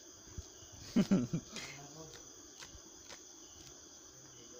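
Crickets chirping steadily. About a second in, a person's voice makes a short sound that is the loudest thing heard.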